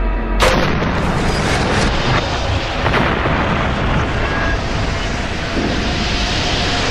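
Explosion sound effect for the explosive decompression of a pressurised model aircraft fuselage: a sudden blast about half a second in, then a sustained rushing, rumbling noise.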